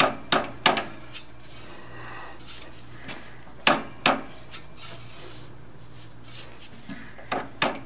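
Metal tool clinks and knocks on a Ducati ST4 engine as it is turned over by hand to bring the vertical cylinder to top dead centre. There are three pairs of short, sharp clinks: one at the start, one about halfway and one near the end. A low steady hum runs underneath.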